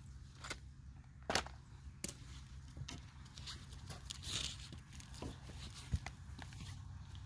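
Tools and a wooden block being handled and set down on a paved path: a few scattered light knocks and clicks, the loudest about a second in, over a faint steady low hum.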